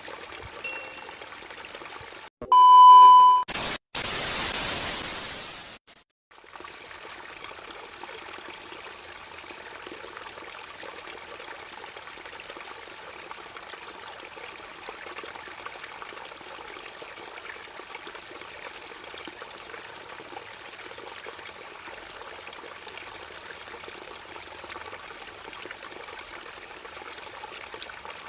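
Steady sound of trickling, flowing water. About three seconds in comes a short loud beep, followed by a burst of hiss lasting about two seconds, the loudest sound here.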